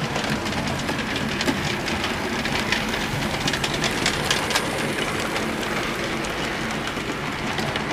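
Model railway steam locomotive hauling a coach along the layout's track: a steady running rumble with many small clicks from the wheels on the rails, running smoothly without derailing.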